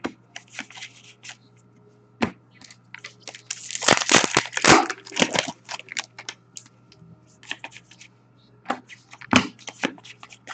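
Hockey card pack wrappers being torn and crinkled, with a dense burst of tearing and crumpling about four seconds in and scattered short rustles and clicks around it.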